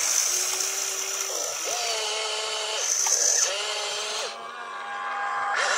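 Electric motors of a hobby RC excavator whining in short runs as the bucket scoops dirt and the boom lifts it. Each run holds a steady pitch that glides up as it starts and drops away as it stops, several in a row.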